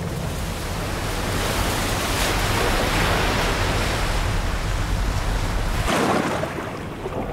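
Ocean waves and wind, a steady rushing wash of sea noise that swells and eases.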